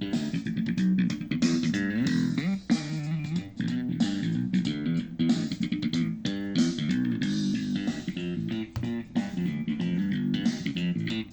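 Music played back through a Zealot S53 portable Bluetooth speaker as a sound test: busy plucked guitar and bass lines with quickly changing notes, the bass strongest.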